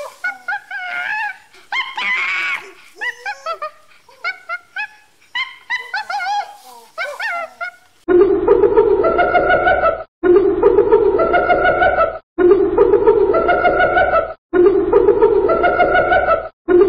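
Barbary macaque giving a run of short calls that bend up and down in pitch. About eight seconds in, a spotted hyena's call takes over: the same two-second call repeated four times with short silent breaks.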